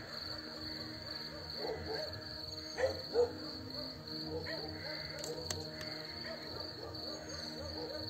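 Field crickets trilling in a steady, fast high pulse, over a soft low background with two brief louder sounds about three seconds in.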